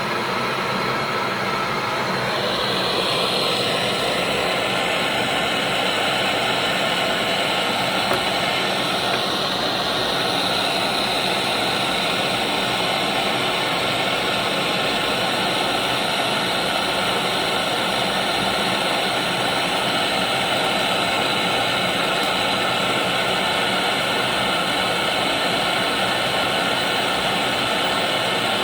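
Hyundai Starex diesel engine running steadily; its pitch rises briefly a few seconds in, as if revved, then holds even.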